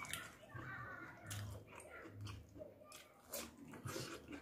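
Close-up eating sounds: a person chewing and biting food, with irregular sharp clicks and crunches from the mouth.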